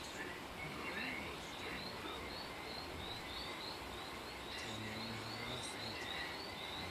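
Insects chirping steadily: a regular string of short high chirps, about three a second, over a faint background hiss.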